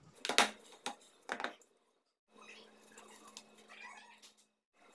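A kitchen knife cutting through milk-powder barfi and scraping against a steel plate: three sharp scrapes in the first second and a half, then only faint, quiet sounds.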